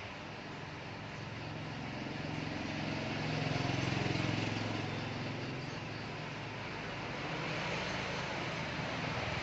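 A motor vehicle engine passing, its hum swelling to a peak about four seconds in and fading, over a steady background hiss.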